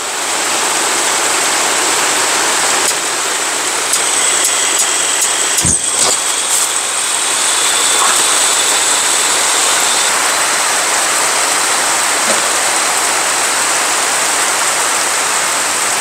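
Heavy rain falling steadily, while a portable gas camping stove with a wet igniter is clicked a few times and catches with a sudden thump about six seconds in. The built-up gas flares up in a big burst of flame, and the burner then runs steadily.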